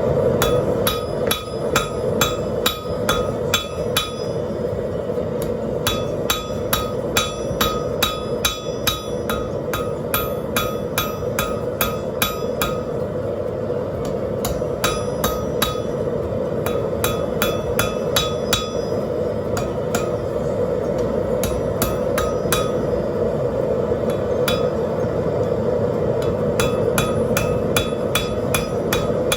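Hammer blows ringing on a 175 lb Trenton anvil while rebar is forged into tongs, in runs of quick strikes about three a second with short pauses between. Under them is the steady roar of a propane forge.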